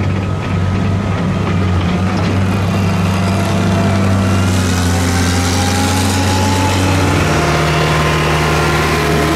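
A Freightliner street semi's heavy diesel engine running steadily. Its note drops a step about seven seconds in.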